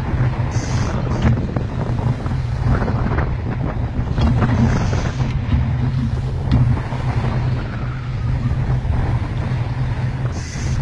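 Strong wind buffeting the microphone aboard a fishing boat at sea in rough weather, over a steady low rumble.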